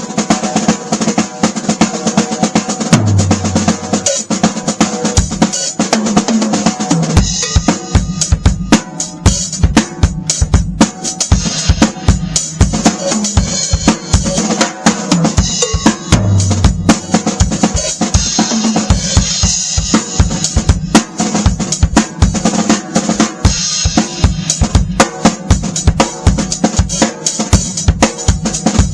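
A drum kit played continuously in dense, fast patterns, featuring a newly tuned Beatello Ace of Spades 14x8 basswood snare drum with a Powerstroke 2 batter head, with bass drum hits underneath.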